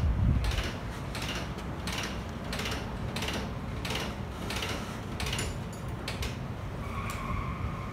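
Ratchet spanner being worked in short strokes, a rasping click burst about every 0.7 s, as the crate bracket bolts of the motorcycle's shipping crate are undone; a brief squeak near the end.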